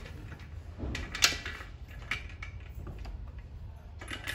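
Clicks and knocks of a power cord being unplugged from an aluminium electric autoclave and handled, the loudest a little over a second in and a few smaller ones after.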